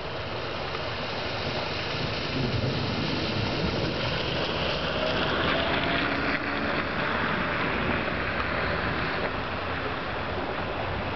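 Torrential rain falling on standing and flowing floodwater: a steady hiss that gets a little louder about two seconds in.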